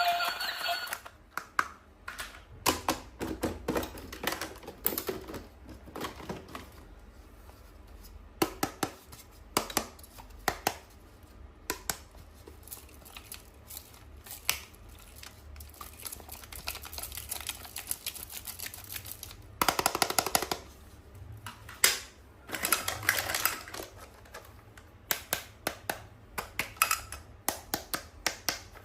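Small plastic toys and packaging being handled: irregular clicks and taps, with a few short stretches of rustling.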